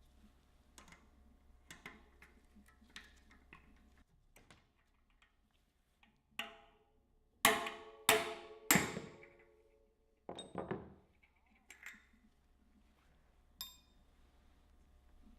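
Hammer striking a punch to drive a sealed bearing and extractor out of a bicycle front hub shell: light clicks and taps, then four loud metallic strikes about half a second apart in the middle, each ringing on briefly, and a few softer strikes after.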